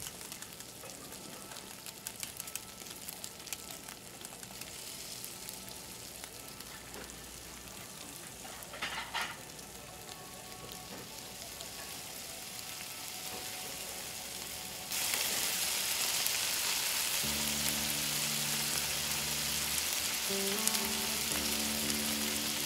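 Butter and oil sizzling in a frying pan, then halibut fillets frying, with fine crackling throughout. About fifteen seconds in the sizzling turns suddenly much louder.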